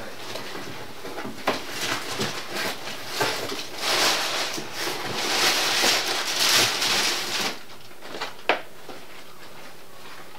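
Handling noise from a boxed machete being picked up: rustling packaging and scattered clicks and knocks, busiest in the middle, then a single sharp click near the end.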